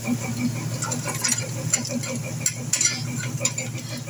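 Cauliflower-stalk fritters sizzling as they shallow-fry in oil in a non-stick pan, with a metal spatula scraping and clicking against the pan as they are turned.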